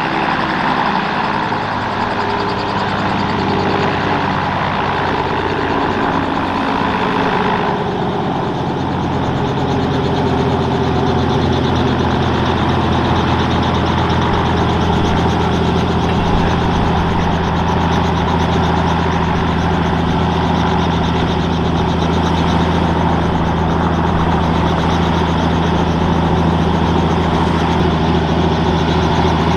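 Robinson R44 Clipper II helicopter running on the ground after landing, its six-cylinder Lycoming IO-540 engine idling with the rotors turning. About eight seconds in the sound drops a little lower and duller, then runs on steadily.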